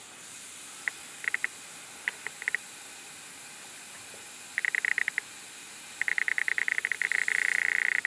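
Gas hissing out of a gas water heater's pressure test port around a manometer tube pushed in without a cap, the leak that a sealed, drilled cap would stop. Short bursts of rapid ticking come and go and run almost continuously over the last two seconds.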